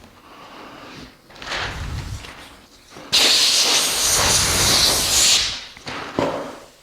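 A loud, even hiss that starts suddenly about three seconds in and cuts off about two seconds later, with softer shuffling noises before it.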